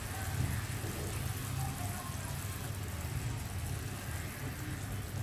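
Thin masala gravy bubbling at a boil in a frying pan, a steady fine crackle of bursting bubbles, with a low steady hum underneath.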